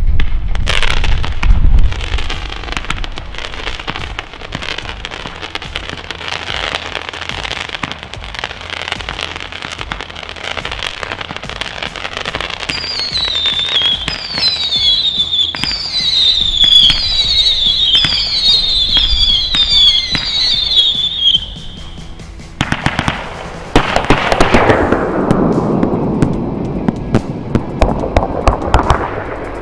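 Weco 'Matrix' 54-shot firework battery firing: a steady run of launch shots over crackling. From about halfway there is a string of about ten short whistles, each falling in pitch, and near the end a louder stretch of rushing crackle.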